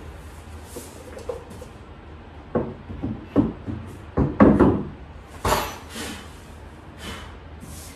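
Shelf panels of a cube shelving unit knocking and clattering as they are handled and fitted into the frame: a run of knocks in the middle, the loudest about four and a half seconds in, with a sharper clatter just after.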